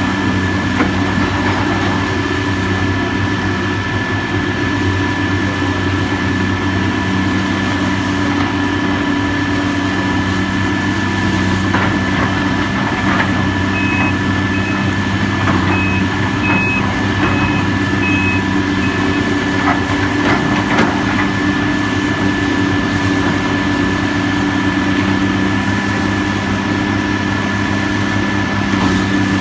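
Heavy diesel construction machinery running steadily with a constant whine over the engine drone. About halfway through, a backup alarm beeps around seven times in a row for roughly five seconds, and a few light knocks sound.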